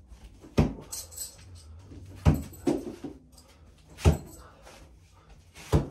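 Steel bo-shuriken (Japanese throwing spikes) thrown one after another and striking a target board: four sharp thuds about every 1.7 seconds, with a fainter knock after the second. A light metallic jingle, like the spare spikes clinking in the hand, comes about a second in.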